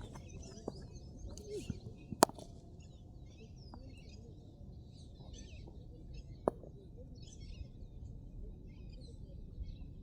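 Small birds chirping and twittering on and off over a steady outdoor background. A sharp knock comes about two seconds in, and a weaker one about four seconds later.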